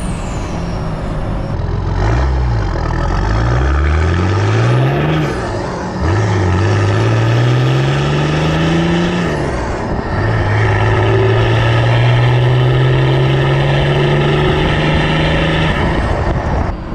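Nissan TD42T 4.2-litre turbo-diesel straight-six accelerating hard through the gears, pulling hard on its freshly rebuilt bottom end. The engine note climbs steeply, drops at gear changes about six and ten seconds in, climbs more slowly in the top gear, then eases off near the end.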